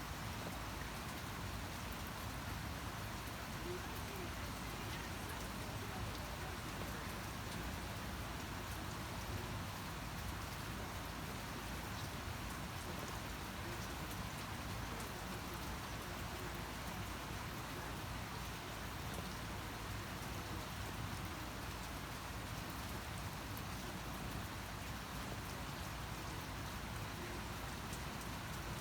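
Steady rainfall with drops pattering on a surface, an even hiss with scattered small ticks and no change in intensity.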